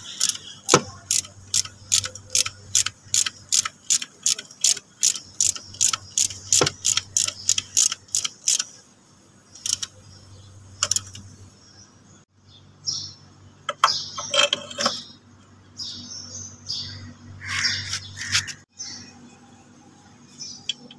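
Ratchet wrench with a 12 mm socket clicking in a steady run, about three to four clicks a second, as a scooter's front shock absorber bolt is tightened. The clicking stops after about eight and a half seconds. Later come irregular metallic clinks and rattles of the suspension parts being handled.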